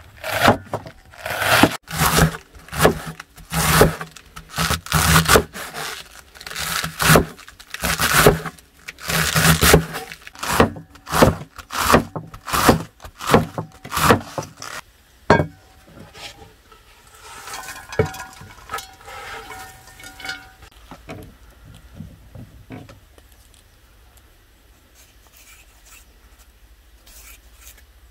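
Large cleaver chopping through a head of cabbage onto a wooden chopping board, a crunchy chop slightly more than once a second, stopping about halfway through; quieter scraping and handling sounds follow.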